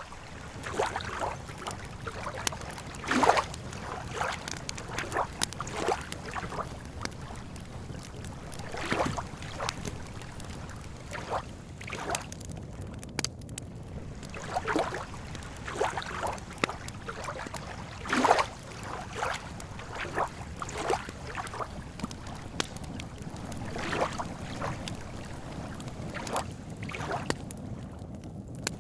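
Lake water lapping and sloshing in irregular small splashes over a steady low rumble, with occasional sharp crackles from a campfire.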